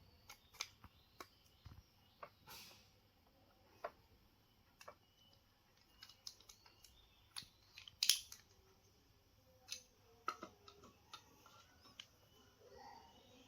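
Faint, irregular small clicks and taps of a vintage Voltes V Crewzer-1 toy's parts being handled and worked apart or fitted together, the loudest click about eight seconds in.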